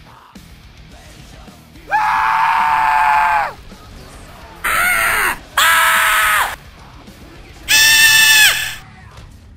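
Dubbed-in screaming sound effects: three loud, held "aah" screams at a steady pitch, each ending with a slight drop, with a shorter, rougher burst between the first and second.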